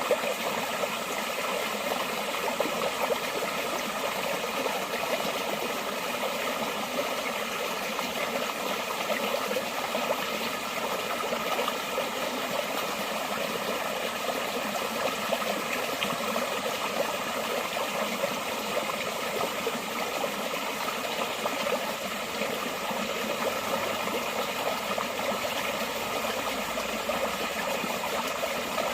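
Forest stream flowing steadily: an unbroken rush and splash of water, bright rather than deep, with little low rumble.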